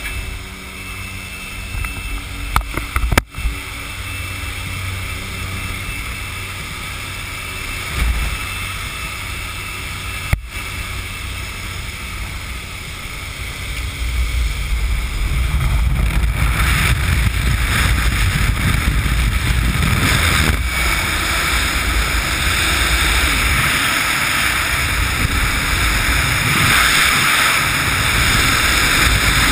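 Jump plane's engine and propeller drone mixed with rushing air at the open door, with a couple of brief knocks about three and ten seconds in. About a third of the way through, the sound swells into loud, steady wind rushing over a helmet camera as the wingsuit flyer exits into freefall.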